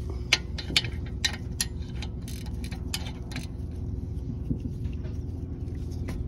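A 13 mm ratcheting wrench clicking as it is worked on a rear brake caliper bolt. The sharp clicks come about two a second for the first three and a half seconds, then more sparsely, over a steady low hum.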